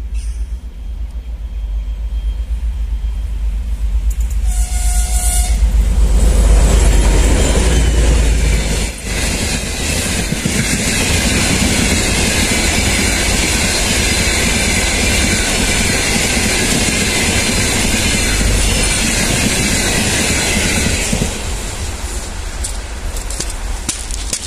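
A 2M62U twin-section diesel locomotive, with two-stroke V12 diesels, hauls a freight train past. A short horn note sounds about five seconds in. The locomotive's heavy engine rumble is loudest soon after. A long run of freight wagons follows, their wheels rolling over the rails with a steady high hiss, and the sound eases near the end as the train moves away.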